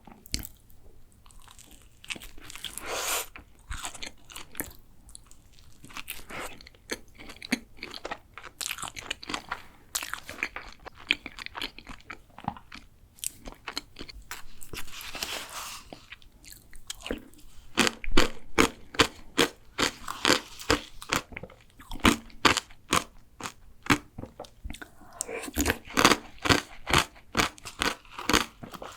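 Chewing and crunching of a flaky layered chocolate pastry, with runs of quick, sharp crunches about two-thirds of the way through and again near the end.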